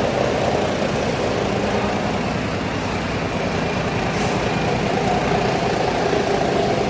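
Diesel engine of a large tour coach running steadily at low revs while it reverses slowly onto a ferry, with a short hiss about four seconds in.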